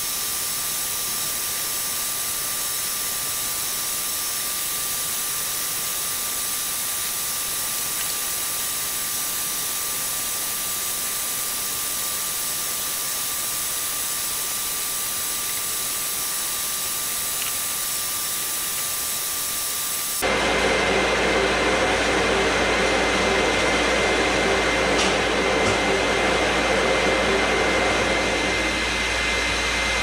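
MBO T49 buckle paper folder running at full speed, feeding and letter-folding sheets with a steady hiss and a high whine. About twenty seconds in, the sound changes abruptly and fills out with a low hum and ringing tones, easing off slightly near the end.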